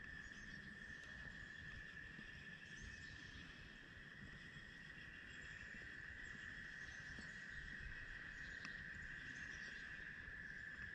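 Faint outdoor ambience: a steady, high-pitched chorus of calling animals held without a break.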